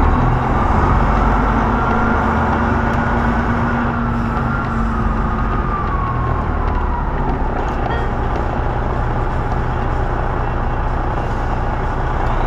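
Truck's diesel engine running steadily, with a faint whine that rises and then falls away over the first several seconds.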